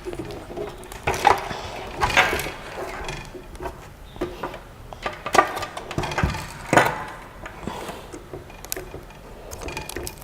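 Irregular knocks, clunks and rustles of the parts of a Creality CP-01 3D printer being handled during unboxing. The loudest clunk comes a little past the middle.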